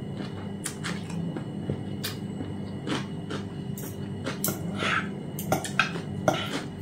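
Metal spoon and fork clinking and scraping against a plate during a meal. The clicks come more often over the last couple of seconds, over a low steady hum.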